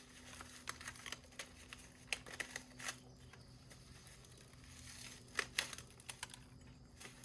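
Packing wrapping crinkling and tearing in irregular short bursts as a shipped potted cactus is unwrapped by hand.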